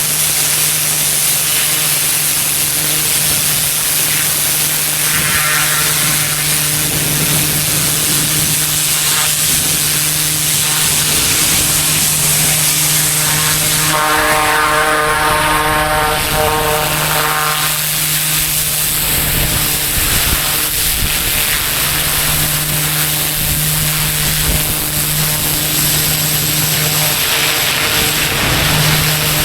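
Pressure washer running steadily: an engine hum under the constant hiss of a high-pressure water spray on pavement. A higher pitched whine joins for a few seconds midway.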